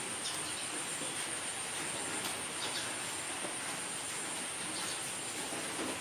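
Steady high-pitched drone of insects, with a few faint ticks and rustles.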